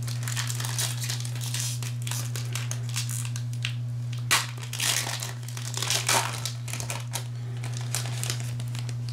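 Foil trading-card pack wrapper crinkling and being torn open by gloved hands: a run of irregular sharp crackles, loudest about four to six seconds in. A steady low hum runs underneath.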